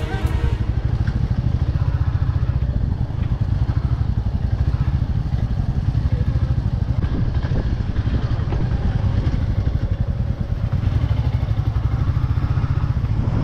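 Motorcycle engine running steadily, a dense low rumble.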